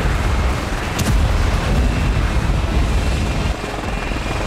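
Loud, continuous rumble of explosions, with a sharp crack about a second in, easing slightly after about three and a half seconds.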